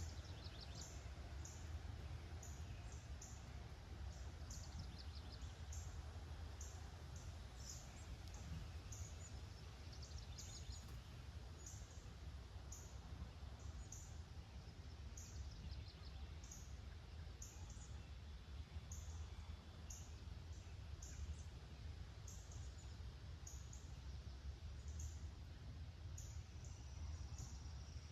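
Small birds giving short, high, thin chirps over and over, with a few brief trills in between, over a faint low rumble.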